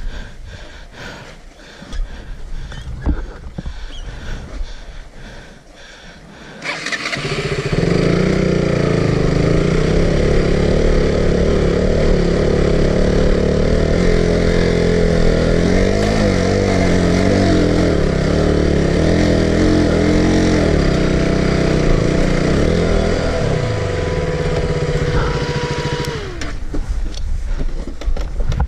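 Motorcycle engine that starts loud about seven seconds in and then revs hard under load, its pitch rising and falling as it is throttled, to keep going up a steep slope in one run. Near the end the engine note sinks and then falls away.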